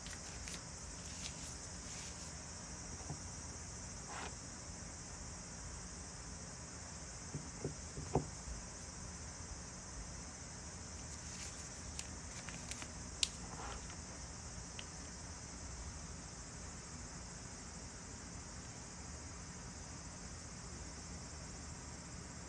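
Quiet room tone: a steady high hiss and a low hum, with a few faint clicks and taps from handling the piping bag and flower nail. The two sharpest taps come about eight and thirteen seconds in.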